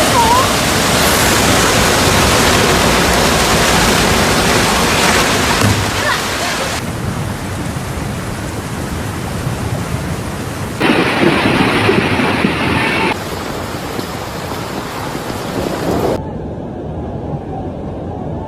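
Rushing floodwater and heavy rain: a loud, steady rush of noise that changes abruptly several times, about 7, 11, 13 and 16 seconds in.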